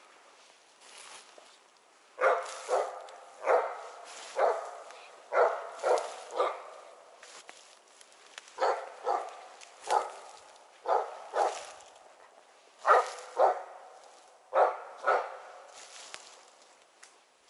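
Hunting dog barking repeatedly at game it has found, short barks in irregular groups of two or three. The quarry is a squirrel, as the hunter judges it.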